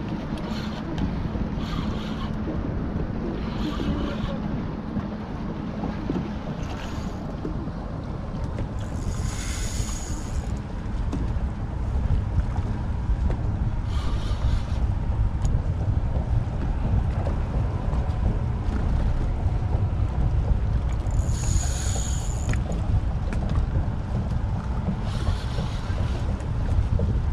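Wind buffeting the microphone and water slapping against a small boat's hull, a steady low rumble that grows louder about halfway through. Several brief higher whirs cut through it, two longer ones about 9 and 21 seconds in.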